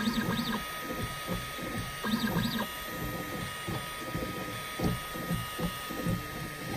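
Ultimaker 3 Extended 3D printer printing: its stepper motors whir with short rising-and-falling whines every couple of seconds as the print head moves, over a steady hum.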